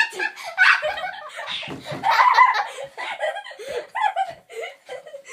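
Two girls laughing hard together, giggling in choppy bursts with a few half-spoken words mixed in.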